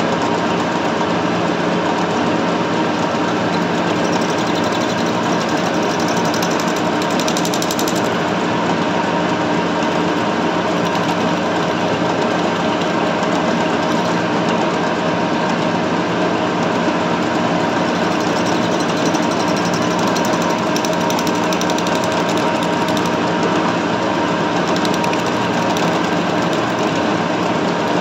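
Metal lathe running steadily, its chuck spinning while the cutting tool turns a small fibre part, with a constant motor hum under the machining noise.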